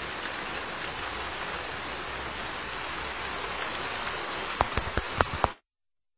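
Rain sound effect: a steady hiss of falling rain that starts suddenly and cuts off abruptly about five and a half seconds in. A few sharp taps come just before it stops.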